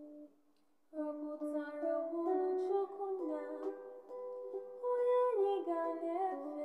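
A woman singing a gospel song in Igbo, holding and stepping between notes, with plucked string accompaniment. The sound drops away briefly near the start, and the singing comes in about a second in.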